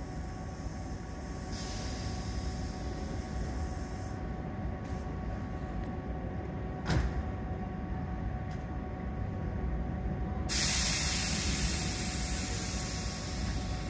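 Tobu 8000-series electric train (set 8111F) standing at the platform, its equipment humming steadily. A fainter hiss comes about two seconds in and a single click about seven seconds in. About ten and a half seconds in, a loud hiss of released air starts and lasts about three seconds, as the train readies to pull out.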